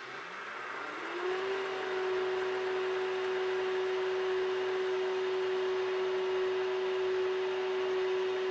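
Vitamix Ascent A3500 blender with the 48-ounce dry grains container milling roasted sunflower seed kernels into meal on high speed. The motor climbs in pitch over about the first second, then holds a steady whine over the rush of the grinding seeds.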